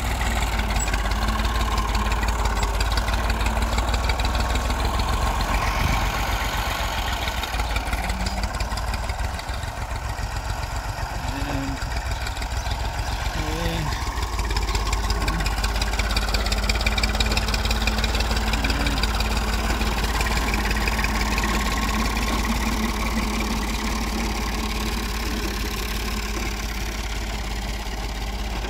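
Farm tractor's diesel engine running steadily under load as it pulls a tine cultivator through the soil between crop rows.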